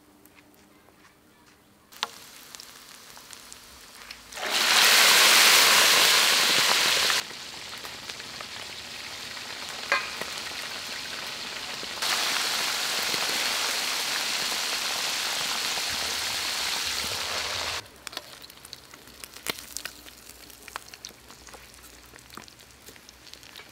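Tiny frogs deep-frying in a wok of hot oil: a dense, steady sizzle that jumps abruptly in loudness several times and is loudest a few seconds in. Near the end the sizzle drops away to small clinks and scrapes.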